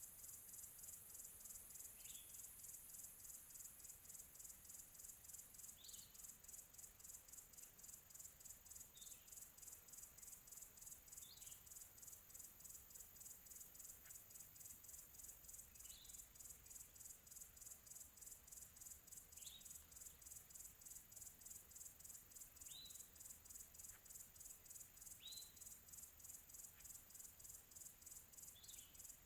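Faint, steady high-pitched insect trilling, pulsing rapidly, with a bird giving short, single chirps about every two to three seconds, nine in all.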